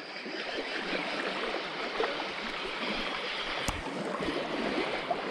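Steady rush of river water running through rapids, with one sharp click about three and a half seconds in.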